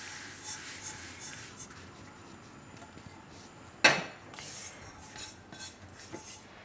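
Roasted white sesame seeds sliding off a kadai onto a steel plate, with a soft hiss that fades within the first moment. About four seconds in there is a single sharp metallic clank of kitchenware, then a few faint small knocks.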